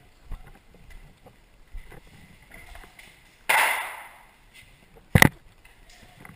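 Faint shuffling steps, then a sudden hissing burst about three and a half seconds in that fades away over about a second, and a sharp double crack near the end.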